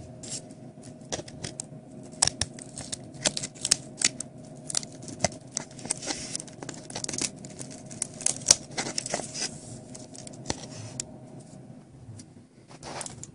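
Irregular light clicks, taps and scrapes of an original iPad being taken apart by hand, as fingers work its ribbon-cable connectors and the edge of its frame.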